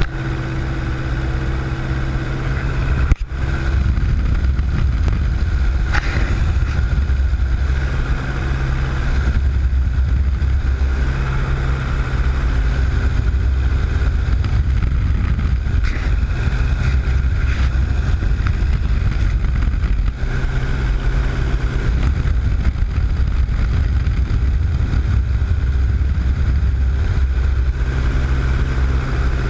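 Small single-engine propeller airplane in flight, heard from inside the cabin: a steady, loud engine and propeller drone with rushing air noise. A single sharp click about three seconds in.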